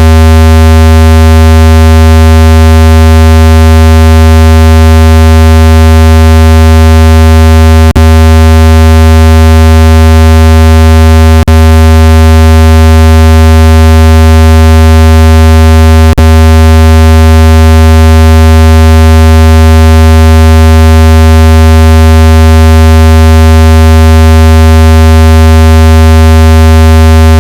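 Loud, low, steady buzzing tone, the kind played through a phone speaker to shake water out of it. It holds one unchanging pitch, broken three times by a brief click-like dropout.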